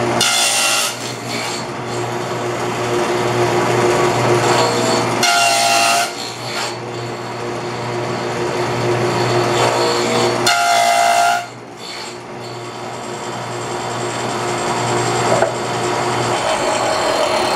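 Table saw with a dado blade stack running and cutting finger-joint slots in a board, over the motor's steady hum. There are three louder, ringing passes about five seconds apart, at the start, around five seconds in and around ten seconds in.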